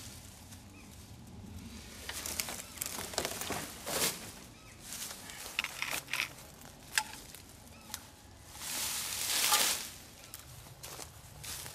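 Dry leaf litter and grass rustling and crackling in irregular short bursts as they are pushed aside and trodden through, with a longer, louder rustle about nine seconds in.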